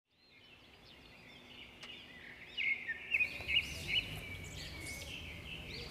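Birds chirping, fading in from silence, with a cluster of louder chirps a little past the middle.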